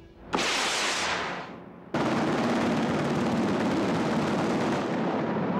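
A sudden explosion-like blast that fades away over about a second and a half. About two seconds in, a loud, steady, dense rush of noise cuts in abruptly and keeps going.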